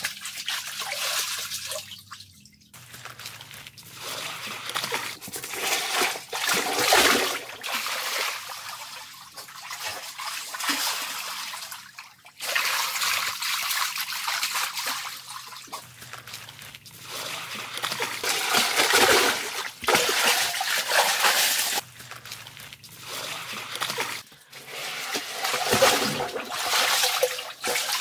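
Water splashing and sloshing as a person swims in a small pool, the splashes swelling and fading in uneven surges with each stroke.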